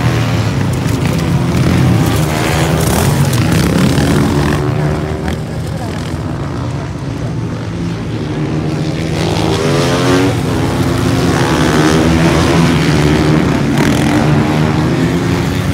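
Supermoto racing motorcycles' engines revving up and down as several bikes brake, accelerate and pass through the corners. The engine note swells around two to four seconds in and again from about ten seconds.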